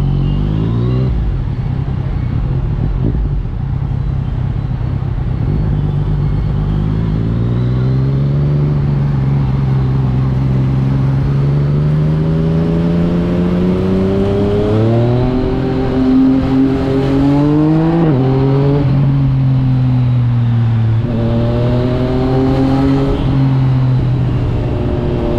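2021 Yamaha MT-09's inline three-cylinder engine running through an Akrapovič exhaust while riding. The revs climb slowly over a long stretch, fall sharply about two-thirds of the way through, rise briefly again, then drop back and hold steady near the end.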